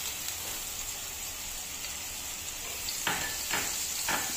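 Butter melting and sizzling in hot olive oil in a nonstick pan, a steady frying hiss. About three seconds in, a few short scrapes as a silicone spatula pushes the butter around the pan.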